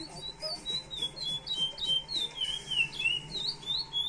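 Chestnut-bellied seed finch (curió) singing: a steady run of short, clear whistled notes that slide up and down, about four a second.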